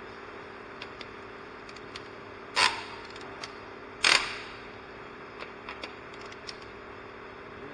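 Metal hand tools clinking and clanking against a car wheel, with two loud sharp clanks about two and a half and four seconds in and fainter clicks in between, over a steady hum.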